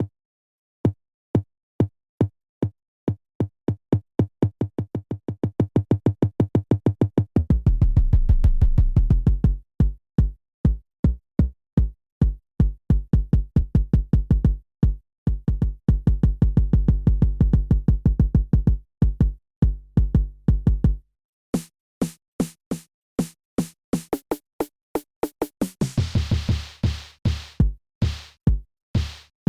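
EGDR909 drum machine app, a software emulation of the Roland TR-909, playing programmed beats. Single hits speed up into a roll, then give way to a beat with a heavy bass drum. The low drums drop out for a short break of high clicks about two thirds of the way through, and the full beat returns near the end.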